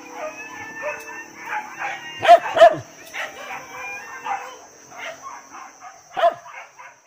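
A pack of hunting dogs barking and yelping in a running chorus as they catch a wild boar. There are two loud barks about two and a half seconds in and another about six seconds in.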